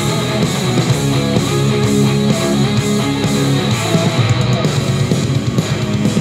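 Heavy metal music with electric guitar playing through a pair of REAL-EL S-450 2.0 computer speakers during a listening demonstration.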